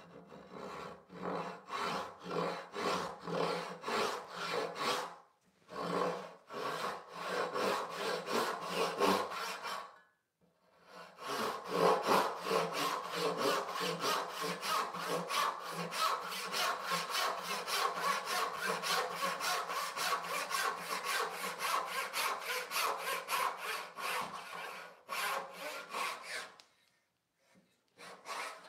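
Brass-backed tenon saw cutting down the grain of a walnut board by hand, in even push-and-pull strokes about two to three a second. There are two short breaks in the first ten seconds, and the sawing stops about two seconds before the end.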